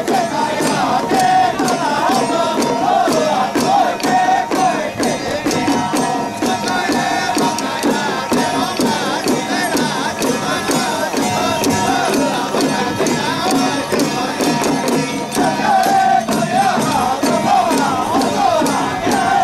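Ritual hand drums beaten in a fast, steady rhythm. A wavering melodic line rides over it in the first few seconds and comes back near the end, with crowd noise beneath.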